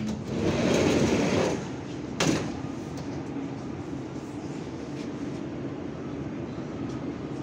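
Siemens Inspiro metro car's sliding door opening after its button is pressed: a click, then the door sliding open with a rushing sound for about a second and a half, ending in a sharp knock about two seconds in. A steady hum follows.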